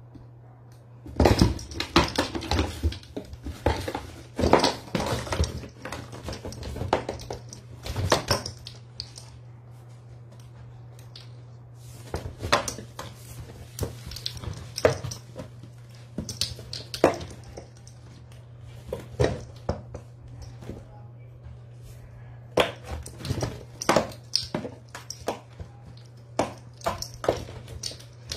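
Kitten batting at and clambering over a cardboard box toy: bursts of knocks, taps and scrapes of paws and claws on cardboard, in several flurries with a short lull in the middle.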